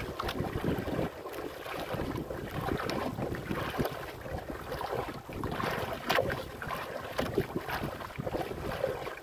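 Choppy sea waves slapping and splashing against the hull of a small wooden outrigger boat, in an uneven run of splashes, with wind buffeting the microphone.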